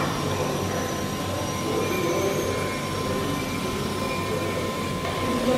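Steady low rumble and hum of a machinery hall, with a thin steady high tone running through it.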